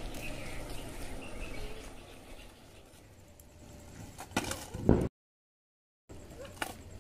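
Skateboard wheels rolling on asphalt with a low rumble that fades away, then a few clacks and a loud clatter of the board hitting the road about five seconds in. The sound cuts out for about a second, then a light click follows.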